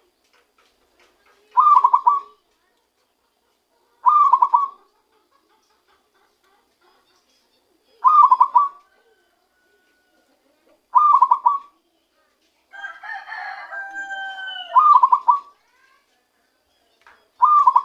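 Zebra dove (perkutut) singing its cooing song: six short, rolling coo phrases, each under a second, at about three-second intervals. A longer call from another bird, with a falling tone, sounds between the last few phrases.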